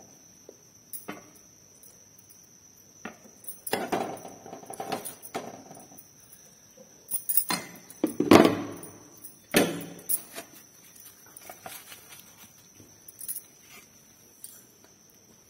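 Steel serving spoon clinking and scraping against a kadhai and a steel plate as food is dished up. The knocks and scrapes come scattered, in a few clusters, with the loudest about eight seconds in.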